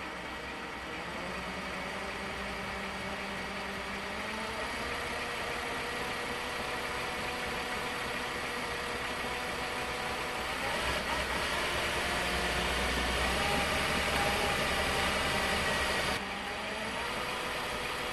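Reliable 8900M industrial straight-stitch sewing machine running steadily while it winds a bobbin, a continuous motor hum. It grows louder past the middle and drops back suddenly a couple of seconds before the end.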